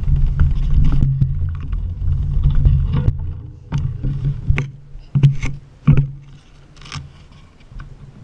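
Handling noise on a bike-mounted action camera: a low rumble for the first few seconds, then a string of sharp knocks and clicks as the camera and bike are moved, fading to faint clicks near the end.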